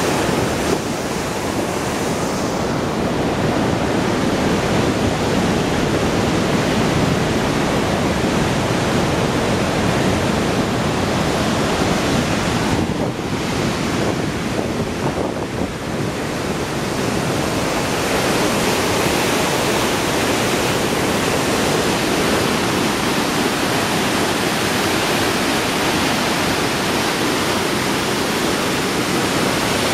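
Magog River in high flood, white water rushing through the gorge and pouring over a concrete dam spillway: a loud, steady rush that thins briefly about halfway through.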